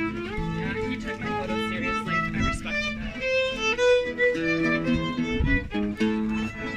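A street violinist playing a melody on the violin, the notes changing quickly with some slides, while a guitar accompanies underneath.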